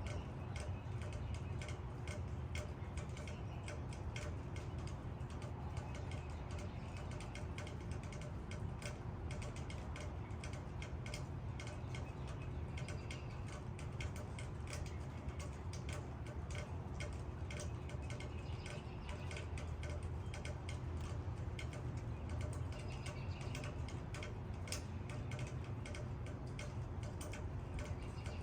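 Rain falling on leaves: dense, irregular drops ticking and pattering, over a steady low rumble.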